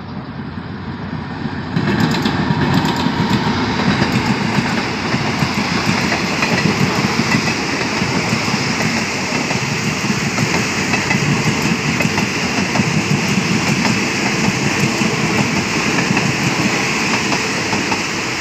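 Express passenger train hauled by an SRT QSY-class diesel locomotive passing close by. It gets suddenly loud about two seconds in, then its carriages roll past, the wheels clattering steadily over the rail joints.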